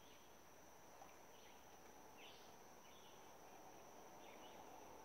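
Near silence: faint insect chirps about once a second over a steady high insect drone.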